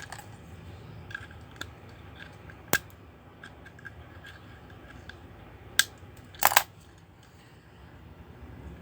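Sharp clicks and snaps of hard plastic as a toy remote-control car is pried apart to get at its motor: single clicks about 3 and 6 seconds in, then a louder short rattle of snaps a moment later.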